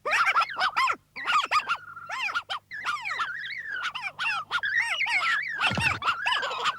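High-pitched, squeaky gibberish chatter of clay-animation characters: several quick babbling phrases with pitch sliding up and down. A brief noisy burst about six seconds in.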